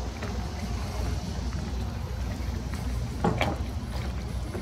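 Steady low outdoor background rumble, with a short, high pitched squeak or call about three seconds in.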